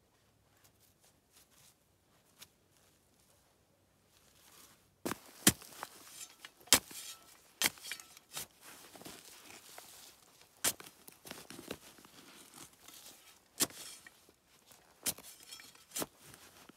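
Dry branches and brush being handled and broken: irregular sharp cracks and snaps with rustling and tearing between them, starting about five seconds in after near silence.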